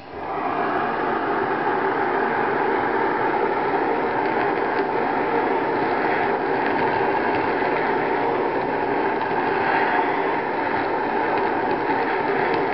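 Handheld kitchen blowtorch burning with a steady hiss as its flame is played over the surface of a filet mignon to brown it. The flame sound starts abruptly at the very beginning and stays even throughout.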